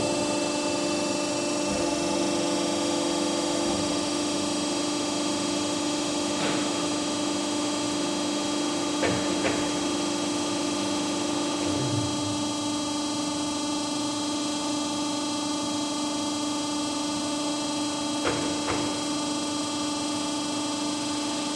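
Hydraulic test bench pump unit running with a steady hum, driving a double-acting telescopic hydraulic cylinder as its rod extends under pressure. It switches on abruptly at the start and cuts off at the end. A few faint clicks are heard, and the tone shifts slightly about twelve seconds in.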